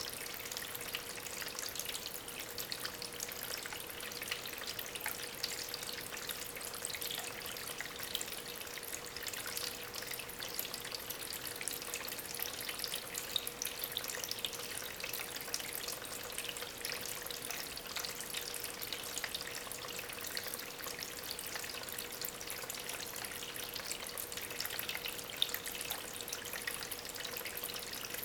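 Water from a small homemade waterfall trickling and splashing steadily over stones, its flow driven by a small aquarium pump, with a faint steady hum underneath.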